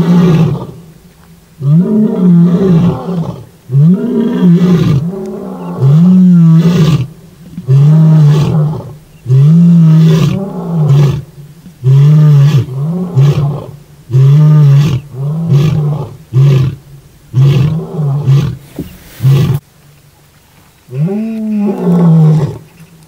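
Male lion roaring: a few long roars, then a run of shorter calls about one a second that get shorter as the bout goes on. After a pause of about a second and a half, one more roar near the end.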